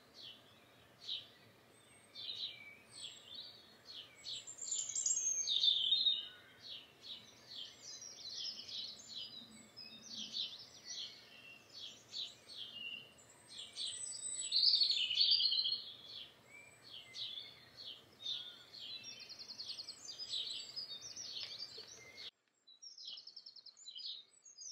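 Dawn chorus: many songbirds singing at once, their songs and calls overlapping throughout, including a fast, evenly pulsed trill. A faint low background noise under the birdsong stops abruptly near the end.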